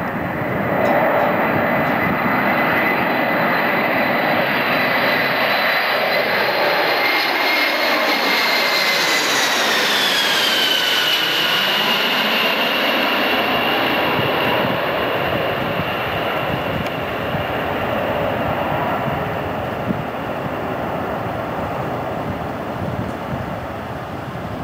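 Boeing 747 jet engines on final approach, passing low overhead: a steady loud roar with a high fan whine that slides down in pitch about ten seconds in as the plane goes over, then eases off slightly as it heads away toward the runway.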